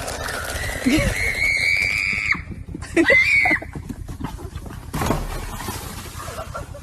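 An animal's high-pitched squealing cry: one long call held for over a second, then a shorter one that rises and falls.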